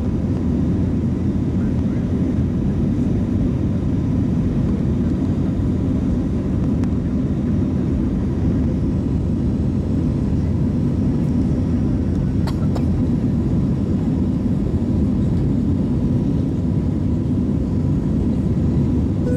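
Steady cabin noise of a jet airliner in flight, a deep even rumble of engines and airflow heard from a window seat. Two faint clicks come about twelve seconds in.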